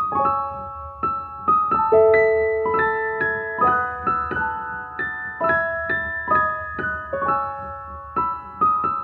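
Piano introduction: a gentle melody of struck notes over sustained chords.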